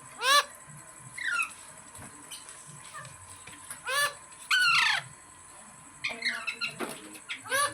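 Green parrot calling in loud, harsh screeches: single sharp calls, a longer call falling in pitch about five seconds in, then a quick run of short calls near the end.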